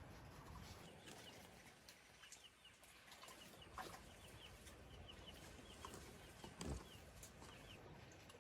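Faint bird calls, many short high chirps repeating, with a few soft clicks and a low thump about two-thirds of the way through.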